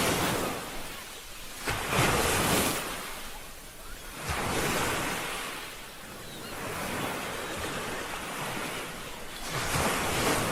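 Ocean waves breaking and washing ashore, the noisy surf swelling and falling back every two to three seconds.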